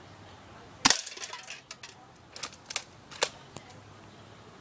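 A UTG M3S multi-shot airsoft shotgun fires once, a sharp pop about a second in. A scatter of light, irregular metallic clicks and ticks follows over the next few seconds.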